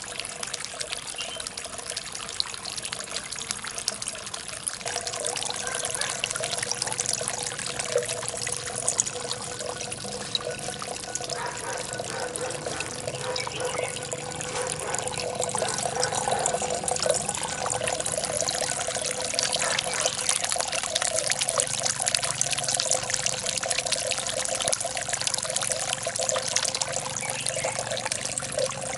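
Water from a stacked ceramic-jar garden fountain pouring and trickling into a small pond, a steady splashing stream.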